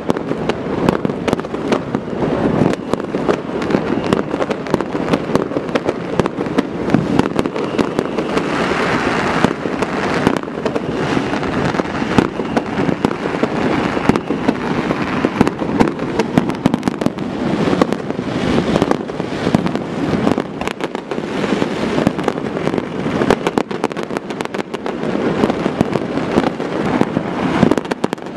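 Many fireworks and firecrackers going off at once: a dense, unbroken crackle of pops and bangs.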